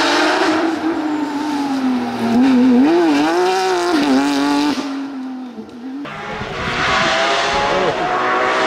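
Porsche 911 GT3 (997) rally car's flat-six engine at high revs as it comes past on a tarmac stage. The engine note dips and rises several times with quick throttle lifts around three seconds in, then drops away and fades. About six seconds in, a second rally Porsche further off accelerates with rising engine pitch.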